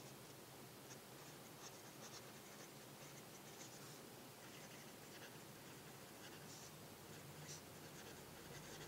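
Parker Sonnet fountain pen with a medium nib writing cursive on notebook paper: faint, irregular nib scratches as each letter is formed, over a low hiss.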